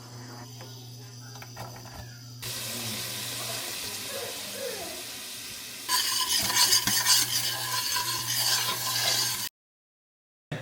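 Chopped onion starting to sizzle in a big pot, beginning suddenly a couple of seconds in and growing louder at about six seconds as a utensil stirs and scrapes against the pot, over a low steady hum. The sound cuts off abruptly near the end.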